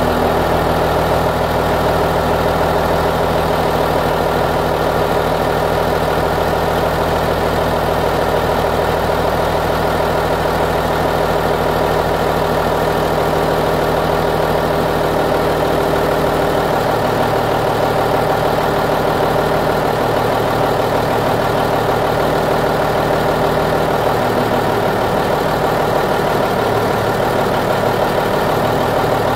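Military 5-ton truck's diesel engine idling steadily. A little past halfway the deepest part of the sound drops away while the rest of the idle carries on.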